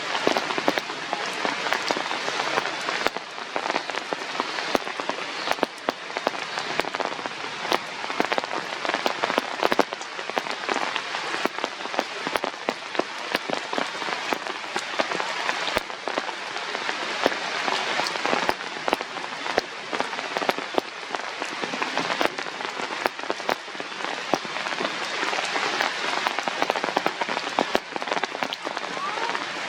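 Steady rain falling on a hard surface, a dense hiss dotted with many separate drop ticks.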